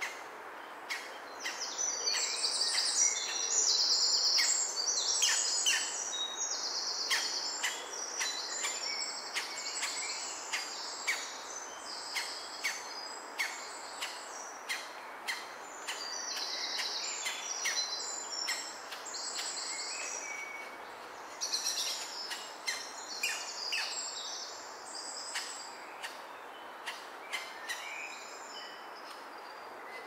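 Green woodpecker chicks in the nest hole giving a high, rasping, rapidly pulsed begging chatter in repeated bursts that fade out near the end. Short sharp ticks sound about once a second throughout.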